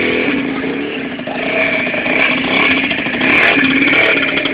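Keeway Hurricane 50 cc two-stroke scooter engine running on a ride, its note rising and falling a little with the throttle.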